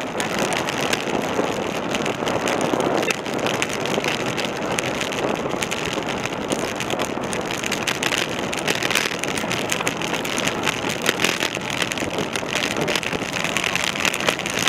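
Steady rushing of wind over a bicycle-mounted camera, mixed with tyre noise from a road bike riding at speed on tarmac.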